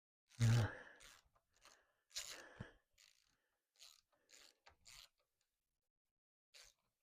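Short, irregular clunks, scrapes and clicks of hand tools being handled on a motorcycle's fork-clamp bolts. The loudest is a clunk about half a second in, with another cluster of scrapes about two seconds in.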